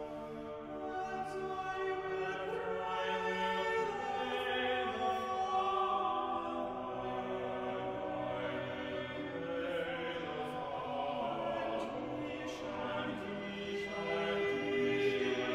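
Background choral music: several voices singing slow, sustained chords that change every second or two.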